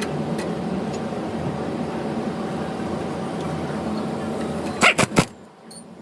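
Car running with a steady engine and road drone, then three sharp knocks in quick succession about five seconds in, after which it goes much quieter.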